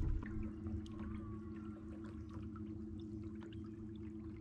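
Small boat's outboard motor running steadily at trolling speed, a constant low hum, with water trickling alongside.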